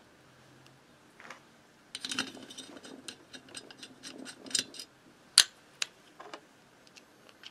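Rapid metallic clicking of a socket ratchet turning the cylinder head nuts on the studs of a Motobécane AV89 moped engine. A single sharp metal clink, the loudest sound, comes about five seconds in, followed by a few lighter clicks.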